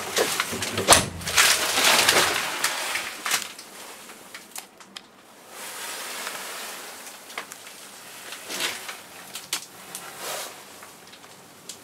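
Thumps and rustling of someone climbing up into a backhoe loader's cab by the grab handle, loudest in the first two or three seconds, then quieter scattered clicks and rustles.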